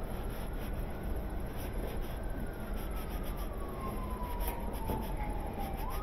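A shop towel rubbing and wiping over a small metal washer part. Behind it, a siren-like wailing tone slides slowly down in pitch and sweeps back up near the end.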